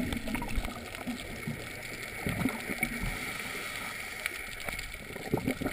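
Muffled underwater gurgling and low rumbling picked up through a dive camera's housing, with irregular surges, a little louder about two and a half seconds in and again near the end.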